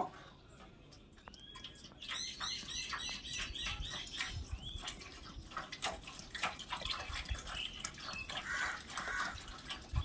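Water poured from a plastic bottle into a tin can, trickling and splashing on the metal from about two seconds in. A run of short high chirps comes soon after the pour starts.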